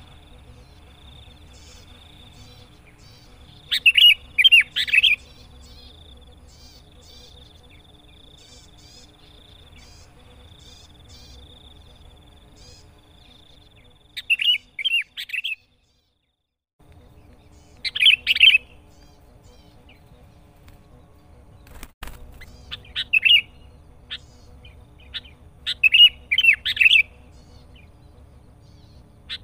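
Sooty-headed bulbul (kutilang) in full song, giving short bursts of quick, bubbly phrases a few seconds apart, about six in all. Fainter chirps and a steady high tone sit beneath it, and the sound cuts out briefly about halfway through.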